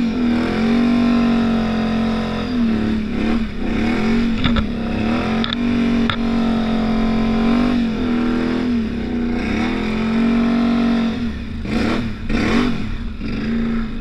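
Can-Am Outlander 850 XMR ATV's V-twin engine running under load through deep snow, revving up and dropping back several times as the throttle is worked.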